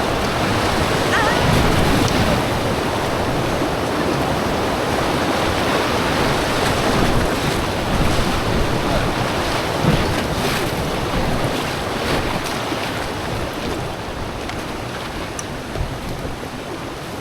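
Rushing white water of river rapids around a raft, a loud steady roar, with wind buffeting the microphone.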